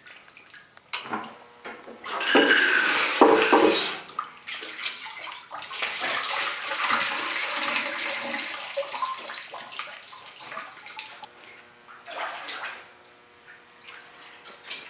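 Water from a hose running and splashing into a sink as a metal bowl is rinsed out under it, in a loud rush early on, a longer spell in the middle and a short burst near the end.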